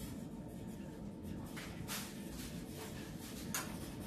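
Low steady hum with a few faint clicks and rustles of things being handled at a kitchen counter.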